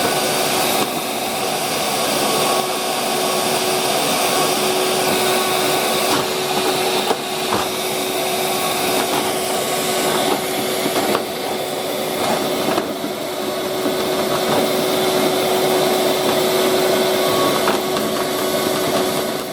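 Vacuum cleaner running steadily with a constant motor hum, switched off abruptly at the end.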